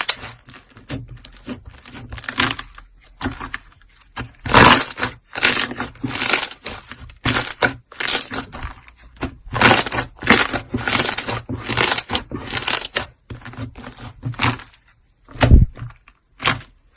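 Hands pressing and squeezing slime in a string of short squishing bursts, about one to two a second, ending with a dull thump.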